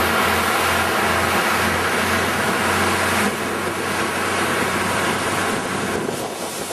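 Fishing boat under way: its engine runs with a steady low hum beneath loud rushing wind and water noise. The rushing eases a little about three seconds in.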